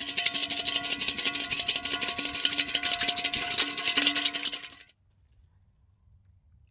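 Sauce being beaten fast in a stainless steel bowl: rapid scraping strokes with the metal bowl ringing under them, stopping suddenly about five seconds in.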